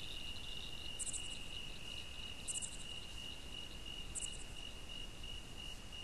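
A faint insect trill: a steady high-pitched tone that starts to break into pulses near the end, with a short higher chirp three times, about a second and a half apart.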